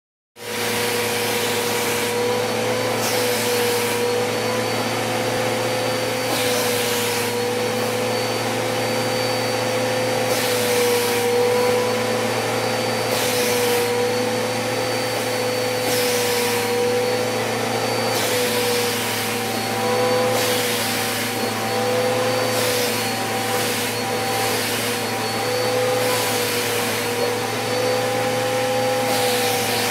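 Vacuum cleaner running steadily with a slightly wavering whine, its crevice nozzle being drawn over a cat's fur; the rushing hiss of the airflow swells and fades every couple of seconds as the nozzle moves.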